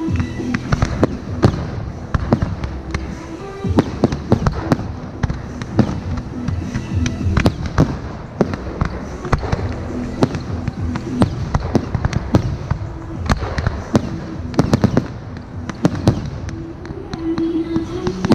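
Fireworks going off in rapid, irregular succession: many sharp bangs and crackles, over music with held tones.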